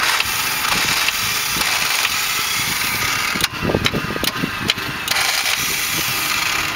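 Toyota 4Runner diesel engine being cranked on the starter with its glow plugs out, a loud steady hiss of air and water blowing out of the open glow plug holes as it tries to clear a water-locked engine. About halfway through, the hiss gives way for a second or so to lower, uneven churning before it returns.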